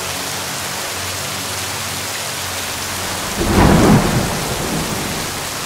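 Steady heavy rain falling, with one sudden loud clap of thunder about three and a half seconds in that rumbles away over the next second or so.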